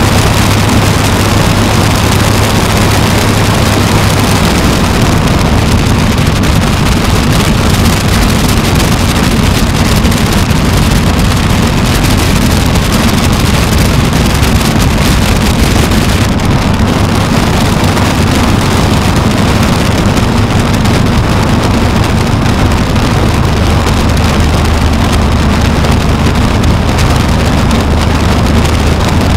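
Aeronca Chief's small air-cooled flat-four engine running in flight, with a steady wind rush over it. The engine note drops a few seconds in and shifts pitch again near the end as power is changed during the descent to land.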